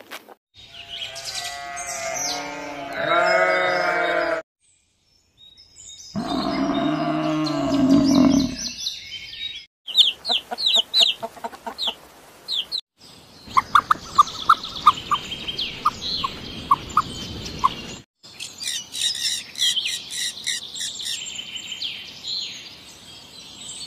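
A run of animal calls: first a drawn-out pitched call, then a rooster crowing, then rapid high chirps from small birds and the dense chattering warble of budgerigars.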